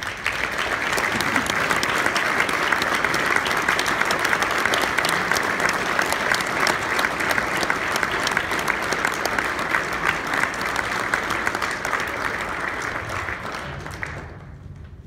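Banquet audience applauding: many hands clapping in a dense, steady patter that starts suddenly and fades out about a second before the end.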